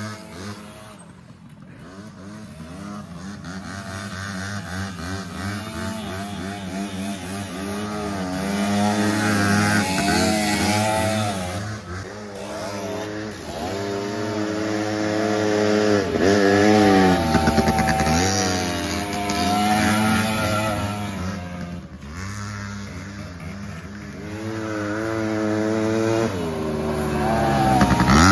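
Engines of two small youth quads (pit-bike-sized ATVs) revving up and down as they ride laps around the yard. The sound swells and fades, and is loudest as a quad passes close by about two-thirds of the way through and again at the end.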